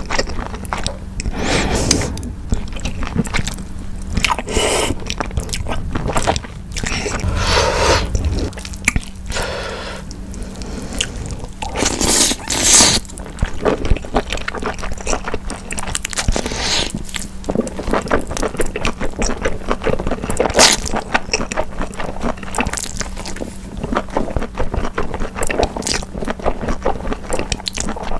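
Close-miked ASMR mukbang eating: spicy cold noodles slurped into the mouth in several long, hissing slurps, with wet chewing and smacking clicks in between.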